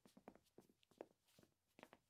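Faint footsteps: soft, irregular steps and small knocks, several a second, on a hard floor.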